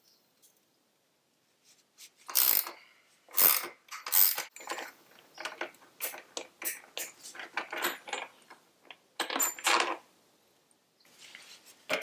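Irregular metallic clicks and clinks of hand wrenches working the bolt that hangs a motorcycle's stock muffler, starting about two seconds in, loudest in the first few strokes and then smaller and quicker.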